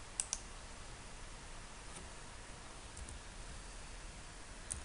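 A few isolated clicks at a computer over a faint steady hiss, with a quick run of keystrokes starting near the end.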